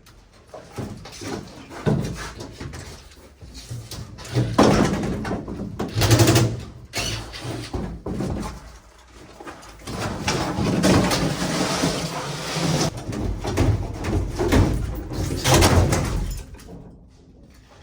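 Irregular banging, knocking and scraping of metal parts as a furnace system is torn out, with several louder stretches of clatter.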